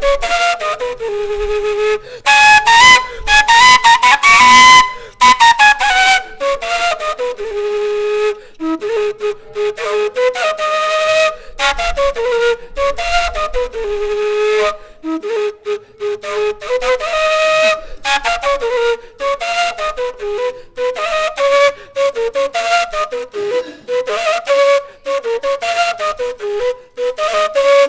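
Gaita, the Colombian cane flute, playing a lively melody in short, choppy notes.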